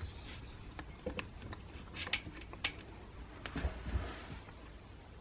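Scattered light clicks and knocks of hands pressing the side clips and working the fittings of a Seldén Rodkicker to release its gas strut, with a slightly heavier knock or two about three and a half seconds in.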